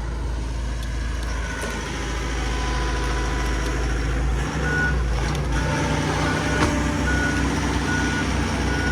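A heavy vehicle's engine runs steadily while it reverses, its backup alarm beeping about three times every two seconds from about halfway through.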